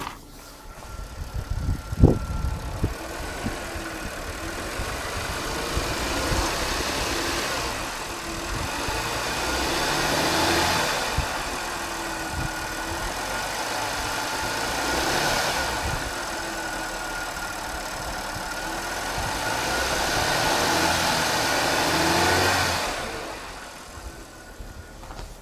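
Audi A6 3.0 TFSI's supercharged V6 starting with a sharp jolt about two seconds in, then running with a steady whine, its level swelling and easing several times. It dies away near the end.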